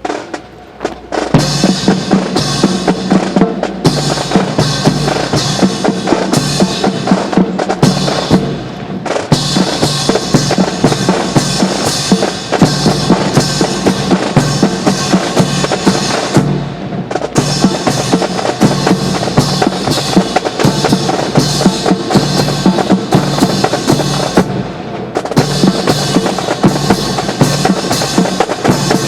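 Marching music driven by snare and bass drums, with dense rhythmic strikes over a steady pitched accompaniment, starting about a second in and dipping briefly a few times.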